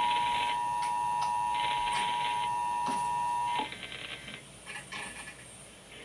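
The EAS attention signal, two steady tones sounding together just under 1 kHz, plays from an FM radio's speaker during a required monthly test and cuts off about three and a half seconds in. A buzzy, higher beep pulses alongside it about every second and a half.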